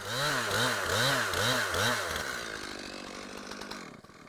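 Gas chainsaw cross-cutting a cherry log. The engine pitch rises and falls about twice a second as the chain works through the wood, then holds steady and lower before dying away near the end.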